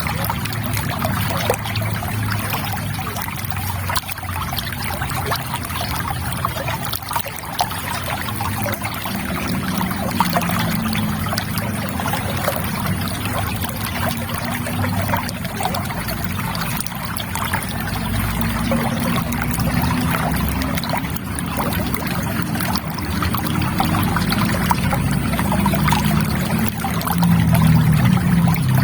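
River water trickling and flowing steadily, with a lower gurgle underneath that grows fuller in the second half.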